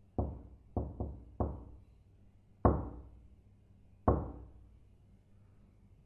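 Knocking on a door: four quick knocks with a short gap after the first, then two louder, slower knocks about a second and a half apart.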